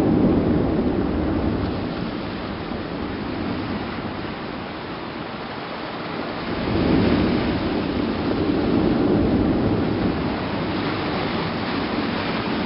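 Strombolian eruption of Batu Tara volcano: a deep, noisy rumble that is loudest at the start and swells again about six or seven seconds in.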